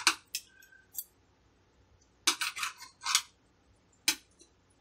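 Knife and fork cutting a cooked chicken breast on a plate: short scrapes and clicks of the metal cutlery against the plate, coming in scattered bursts, the longest a little past two seconds in.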